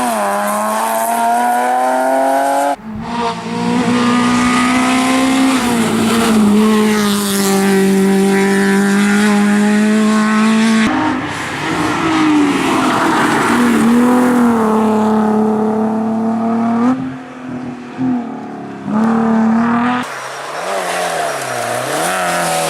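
Rally cars' engines at high revs, climbing and dropping in pitch as they accelerate, shift and lift off for corners. The sound changes abruptly about 3, 11 and 20 seconds in as one car gives way to another.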